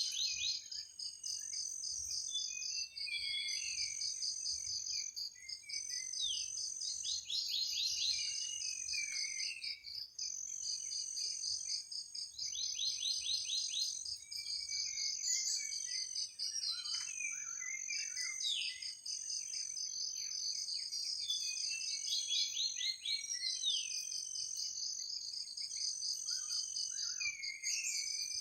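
Night forest chorus: insects trill continuously, with high steady buzzing tones that switch on and off in regular stretches about a second long. Birds call over it with scattered chirps and short quick runs of notes.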